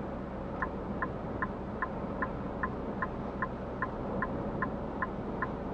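Car turn-signal indicator clicking at an even pace, about two and a half ticks a second, starting about half a second in, over the steady hum of the car's cabin.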